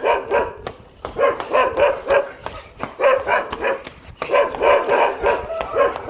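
A puppy barking in quick runs of short, high-pitched barks, about three to four a second, with brief pauses between the runs.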